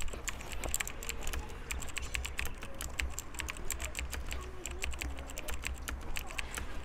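Computer keyboard typing sound effect: rapid, irregular key clicks that go with a caption being typed out on screen letter by letter.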